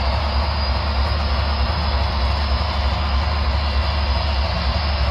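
HO scale model trains running on the track: a steady whirr of small electric motors and metal wheels rolling on rail, with a low hum underneath.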